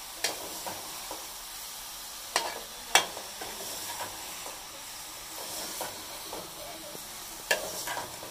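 Chopped ridge gourd (tori) and tomatoes sizzling in an aluminium pot, stirred with a metal spoon. The spoon clinks sharply against the pot four times, loudest about three seconds in.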